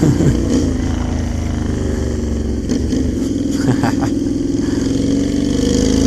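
Honda Shadow 600 V-twin motorcycle engine running under way at a steady pitch, rising slightly near the end.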